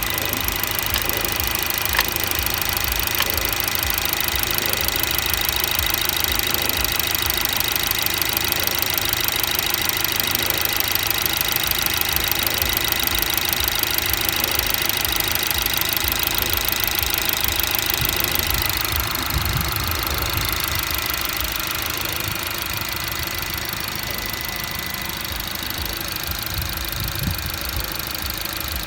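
BMW B48B20 2.0-litre turbocharged four-cylinder engine running cold, with an extraneous mechanical knocking noise at irregular intervals, a sharp click among them about two seconds in. The owner hears the noise only on a cold engine; it disappears once the engine warms up, and diagnostics show no faults.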